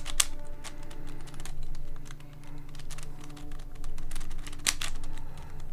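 Plastic layers of a WitEden 3x3x17 cuboid puzzle being turned by hand: a run of light clicks and clacks, with sharper clicks just after the start and near the end.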